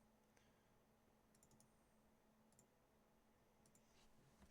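Near silence, with a few faint computer mouse clicks spread through it.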